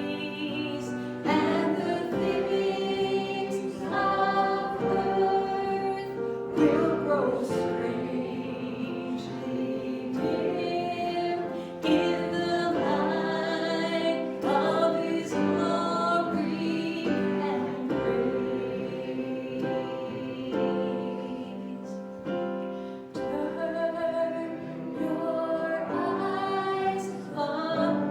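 Group of voices singing a slow gospel hymn, with long held notes.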